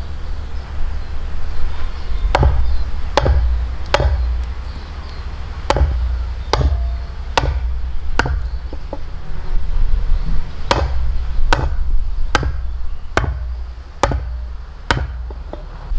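Heavy tool blows on wood, a strike a little under once a second in runs of four to six, with short pauses between runs, over a steady low rumble.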